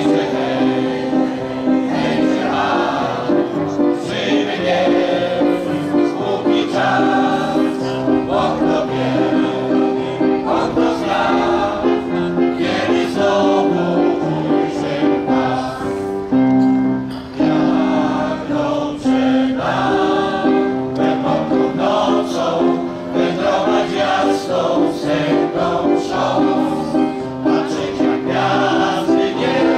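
A crowd singing a Polish song together in unison, accompanied by an electronic keyboard.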